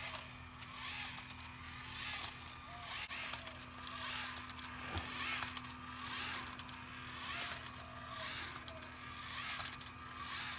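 LEGO Boost walking robot stepping across concrete paving: its motor whirring over a steady hum, with plastic gears and feet clattering and scuffing in a regular stride of about one step a second.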